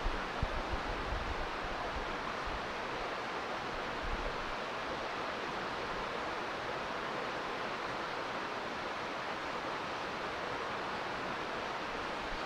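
Steady, even rushing outdoor ambience with no distinct events, with a few low wind buffets on the microphone in the first second or so.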